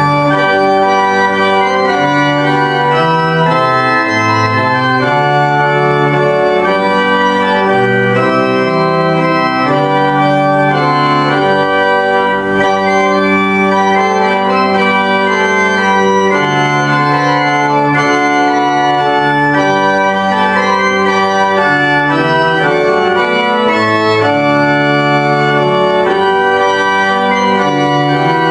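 Church organ playing a hymn in full, sustained chords, the bass notes moving every second or two beneath the held harmony.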